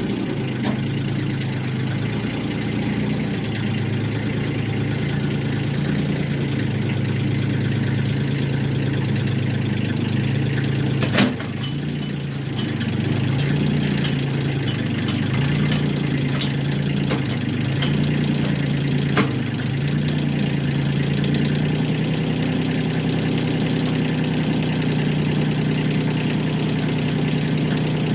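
Tractor engine idling, its speed stepping up and down several times midway and then holding a little higher. A sharp metal clank about eleven seconds in, and a lighter one near nineteen seconds.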